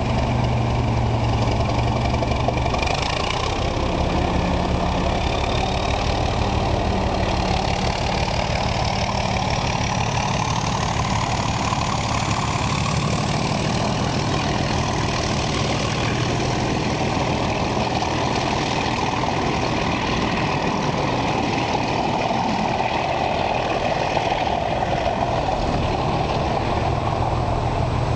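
Diesel train engine running steadily under load, with a thin whine that climbs in pitch from about six to thirteen seconds in.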